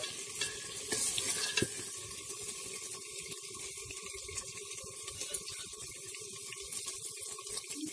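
Mutton frying in a brass pot over a wood fire, a steady sizzling hiss with a faint steady hum underneath.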